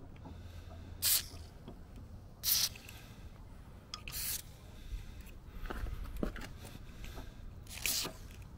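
Ballistol aerosol lubricant sprayed through a thin extension straw in four short hisses, about a second and a half to three and a half seconds apart, the third a little longer.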